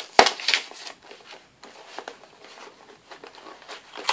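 Packaging of a makeup brush set being handled and opened: a sharp knock with rustling just after the start, then quieter scattered clicks and crinkles.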